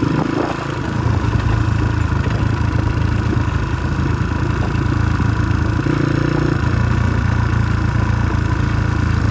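Motorcycle engine running steadily while riding, with its note changing briefly about six seconds in.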